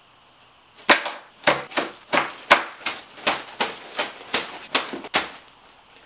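About a dozen sharp clacks, two to three a second, starting about a second in: bagged Ethernet patch cables with plastic RJ45 plugs being dropped one after another onto a tabletop.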